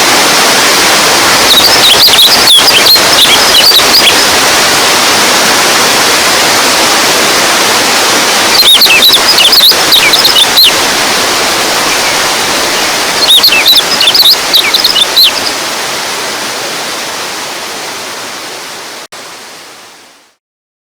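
Steady rush of running water, like a stream or small waterfall, with three short runs of quick high chirps over it. The chirps are the loudest thing heard. The sound fades out near the end.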